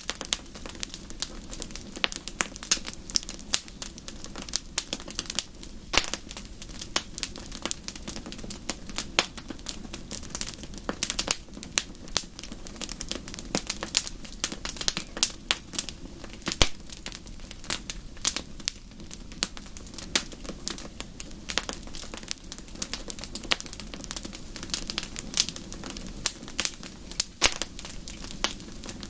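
Wood fire crackling in a fireplace: many irregular sharp pops and snaps over a steady low rush of the burning fire.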